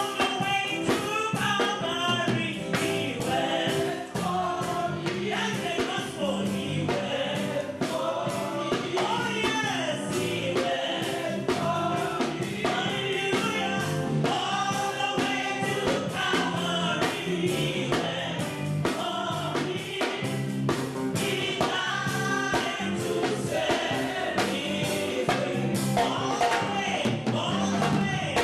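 Gospel music: singers with instrumental backing, a steady beat throughout.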